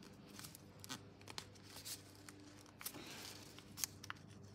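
A folded paper plane being handled and creased by hand: faint crinkling and rustling of paper with small crisp clicks, and a longer rustle about three seconds in.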